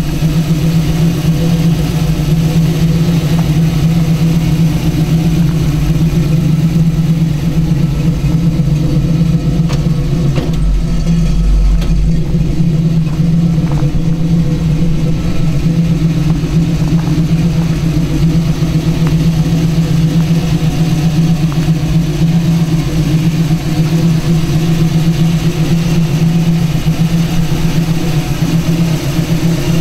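1967 Camaro's rebuilt 350 small-block V8 idling steadily through stainless headers and dual exhaust.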